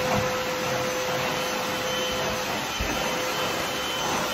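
Steady whirring of a running appliance motor, with a constant hum under the noise and a couple of soft low thumps.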